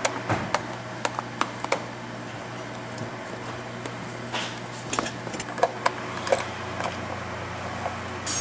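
Flathead screwdriver clicking and scraping on the screw and plastic cover of an air compressor's pressure switch as the cover is unscrewed and taken off. Short sharp clicks come in two clusters, one at the start and one a few seconds later, over a steady low hum.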